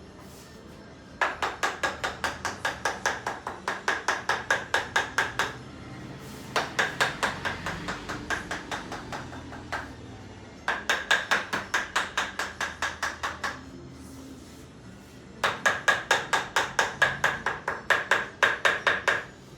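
Rapid, evenly spaced percussive tapping during chiropractic treatment on a patient's body, about five strokes a second. It comes in four bursts of three to four seconds each, with short pauses between them; the second burst is softer and fades out.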